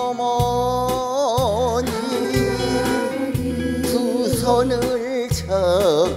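A woman singing a slow Korean trot ballad live, holding long notes with a wide, wavering vibrato over band accompaniment with bass and a regular beat.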